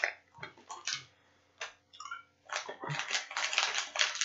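Plastic candy wrapper crinkling as a small candy is unwrapped by hand: a few scattered rustles at first, then a dense run of rapid crinkles from about halfway in.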